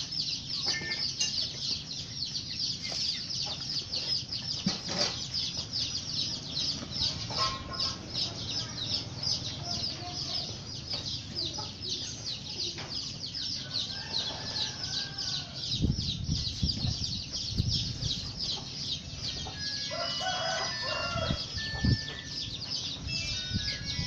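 Chickens in the background: a rooster crows once a little past halfway, and there are scattered clucks and short calls, over a steady, high-pitched, rapid chirring. A few dull knocks sound in the second half.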